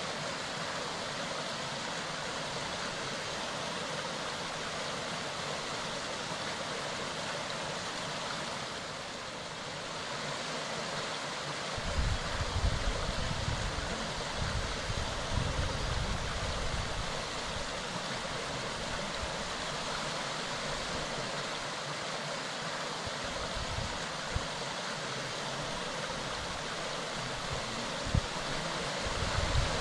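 Mountain stream running: a steady, even rush of flowing water. A stretch of irregular low rumbling runs under it from about twelve seconds in for several seconds, with shorter bits again near the end.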